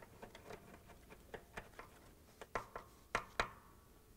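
A nut driver working screws in and out of a washer's brake stator: scattered light clicks and taps, with four sharper clicks between about two and a half and three and a half seconds in.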